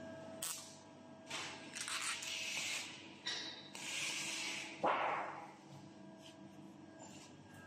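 TIG welding on a stainless steel tube frame: several bursts of hissing as the torch's arc and shielding gas start and stop, the loudest starting sharply about five seconds in. A faint steady tone runs underneath.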